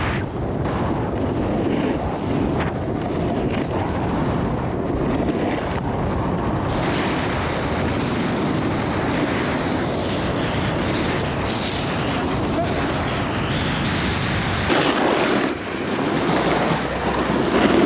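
Wind buffeting the microphone and a snowboard's edges scraping and hissing over groomed snow during a run. The sound changes about fifteen seconds in as the board slows near the bottom.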